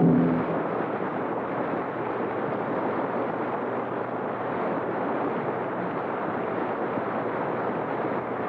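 The tail of an orchestral chord cuts off in the first half-second, leaving a steady rushing hiss and rumble of transcription-disc surface noise with no program sound over it.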